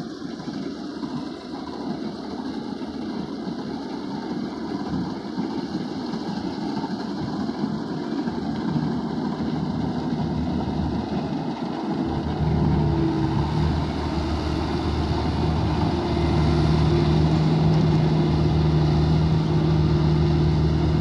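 Claas Crop Tiger combine harvester running while it harvests, growing louder as it approaches. From about twelve seconds in, a steady engine hum comes to the fore.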